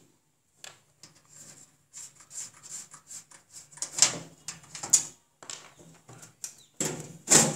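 Scattered clicks, taps and knocks of hands unplugging cables from the back of a desktop computer and handling its metal case, with sharper knocks about four and five seconds in and the loudest one near the end.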